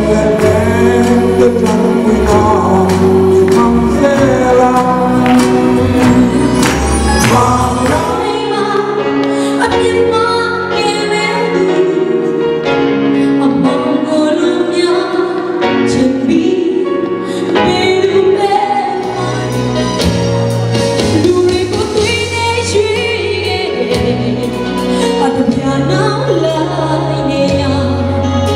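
Live worship song: a solo voice singing into a handheld microphone over an instrumental backing with bass and a steady beat.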